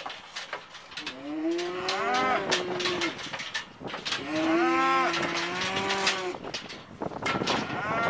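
A cow mooing: two long moos of about two seconds each, a third starting near the end. Sharp knocks and rattles from the metal squeeze chute that holds it come in between.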